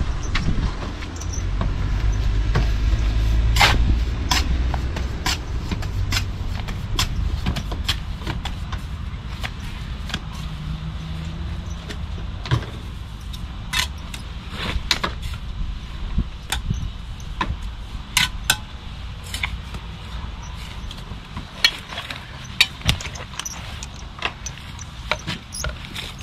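Scattered sharp clicks and knocks of hand tools and masonry being handled on a building site, some with a short metallic ring. A low rumble runs under the first few seconds and then fades.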